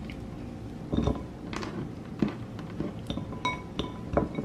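Cucumber slices scooped off a countertop and dropped into a bowl: a string of light knocks and clinks, a few with a short ringing tone.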